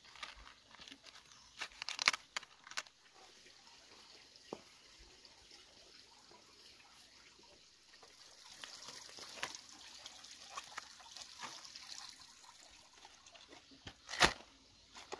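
Cabbages harvested by hand: sharp crunches and snaps of a knife cutting through cabbage stalks, with leaves rustling. Near the end there is a single loud thump as a cabbage head is set into a woven bamboo basket.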